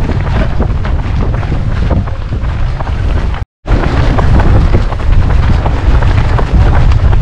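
Loud wind rumble buffeting the microphone, with a short dropout about three and a half seconds in.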